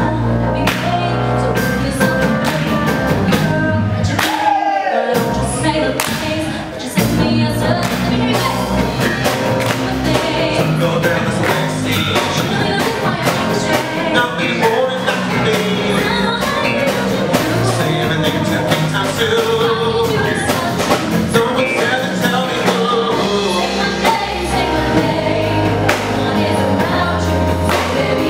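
Live band playing a song: a woman sings lead into a microphone over electric bass, keyboard and drums. The bass and low end drop out briefly about four seconds in, then come back.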